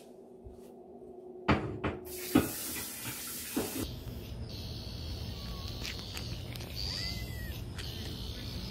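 A few sharp knocks and a short burst of rushing hiss, then a steady low outdoor rumble with a few faint high chirps.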